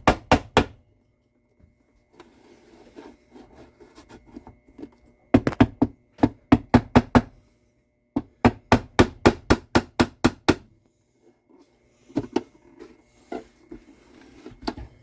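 Mallet tapping in quick runs of about five blows a second, used to knock a glued joint loose on an old Gibson A1 mandolin, with fainter scraping and light taps between the runs.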